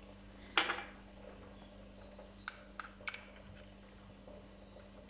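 A metal utensil knocking against a glass mixing bowl: one louder knock about half a second in, then three light clinks in quick succession around the middle, over a steady low hum.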